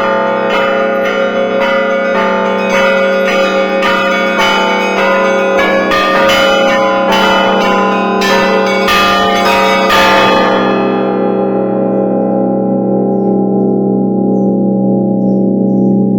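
Russian Orthodox church bells rung by bellringers (a festive zvon): rapid strikes on the small and middle bells over the deep hum of the big bells. About ten seconds in the striking stops, and the low tones of the large bells ring on while the higher ringing dies away.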